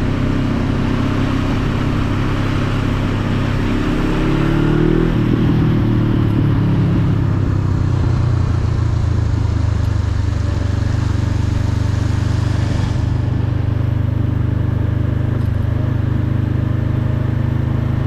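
Motorcycle engine running under way, its pitch rising about four seconds in and then holding a steady low drone, with a rushing hiss of wind that drops away about thirteen seconds in.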